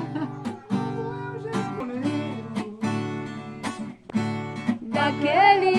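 Acoustic guitar strumming chords in a slow, even rhythm between sung lines, with a voice starting to sing again near the end.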